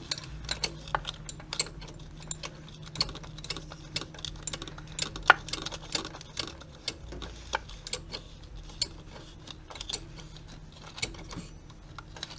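Ratcheting wrench clicking in short, uneven runs as the fasteners of a turbo wastegate actuator are tightened, with light metal taps between strokes.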